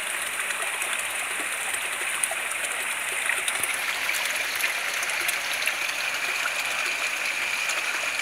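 Small fountain jet bubbling up through shallow water in a tiled basin: a steady splashing rush of water.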